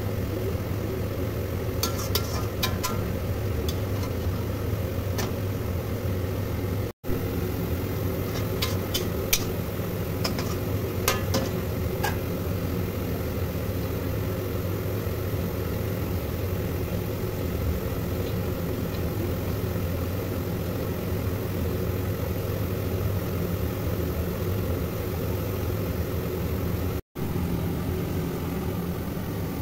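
A steady low machine hum, with a spatula clicking and scraping against a metal kadhai in the first twelve seconds or so. The sound drops out for an instant twice.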